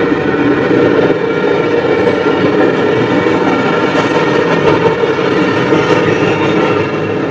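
Double-stack container freight train passing close by: a steady, loud rolling noise from the wheels of the container cars on the rails.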